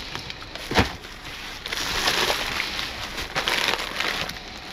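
Packaging being rummaged through: a knock just under a second in, then a couple of seconds of uneven rustling and crinkling.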